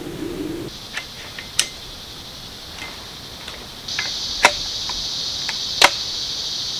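Insects buzzing steadily in a high, even drone that fades slightly then returns louder partway through. Several sharp clicks or taps sound over it, the loudest about four and a half and six seconds in.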